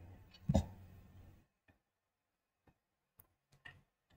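Near silence broken by a short soft thump about half a second in, then a few faint clicks from a computer mouse.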